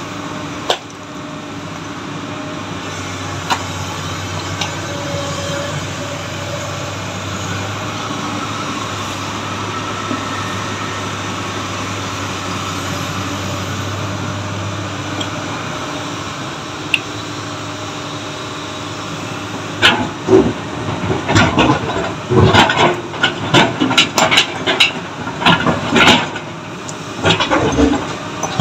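Large diesel engine of a tracked excavator running steadily. About two-thirds of the way in, a quick run of sharp knocks begins: a long-handled hammer striking stone, with broken rock fragments clattering.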